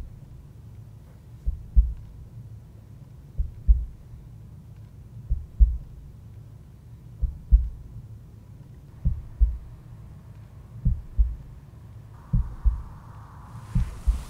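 Slow heartbeat sound effect: low double thumps, a pair about every two seconds and a little quicker near the end, over a low hum.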